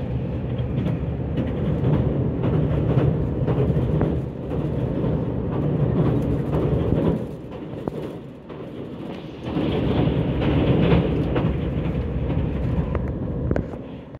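Electric limited express train (JR Shikoku 8000/8600-series EMU) running, heard from inside the car by the doors: a steady low rumble of motors and running gear. It drops away briefly about eight seconds in, then swells back up.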